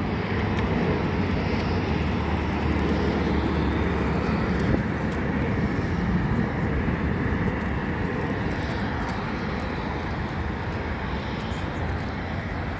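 Jet airliner engines running at an airport, a steady broad noise with a low hum, easing slightly toward the end.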